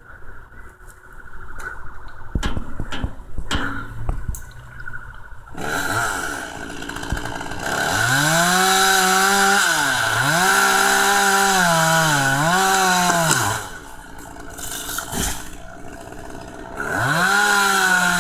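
Two-stroke chainsaw revved up and down in repeated throttle pulls, dropping back near idle and revving again near the end. Before it, a few knocks over a steady engine hum.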